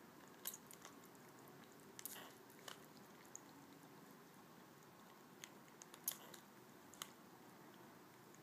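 A hand-held spray bottle squirting water in a handful of short, sharp spritzes at irregular intervals, the loudest about six seconds in, each aimed at a cat that drinks from the spray.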